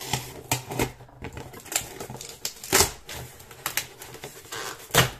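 A shipping parcel being pried and torn open by hand: an irregular run of clicks, crinkles and snaps of the packaging, with sharper snaps about halfway and near the end.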